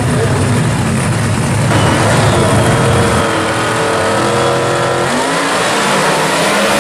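Dragster's engine running loud and steady at the starting line, then held at higher revs. About five seconds in it revs up in a rising sweep as the car launches off the line.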